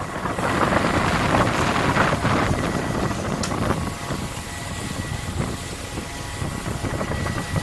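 Longline fishing boat's engine running steadily, with wind buffeting the microphone. A faint steady high whine joins about two and a half seconds in.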